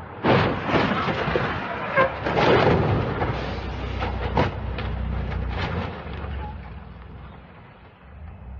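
Excavator's diesel engine running with a steady low hum. A loud rushing, hissing noise with scattered knocks starts suddenly and dies away over the last few seconds.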